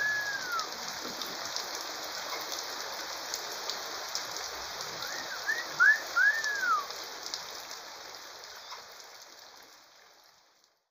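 Steady rain falling on a roof and garden, with lots of fine dripping and splashing. A bird gives short whistled calls that rise and fall, once at the start and a few more around six seconds in. The rain sound fades out near the end.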